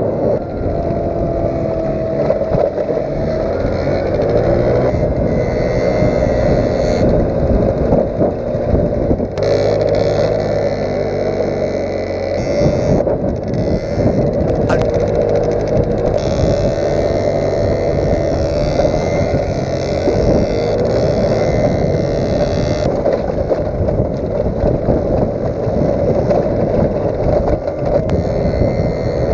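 Small 50cc moped engine running hard and continuously, its pitch wavering as the throttle changes, with rattling from the bumpy ride and wind noise on the microphone.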